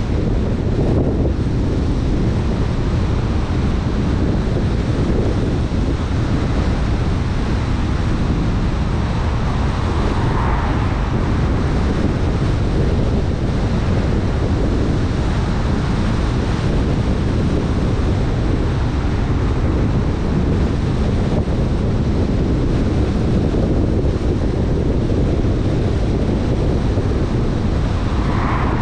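Steady wind rumble buffeting the microphone, mixed with the road noise of a moving vehicle, with two brief swells in the rush about ten seconds in and near the end.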